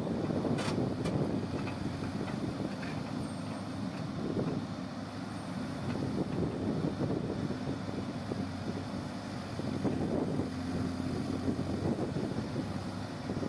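A backhoe loader's diesel engine runs steadily, with a couple of sharp metallic clicks about a second in.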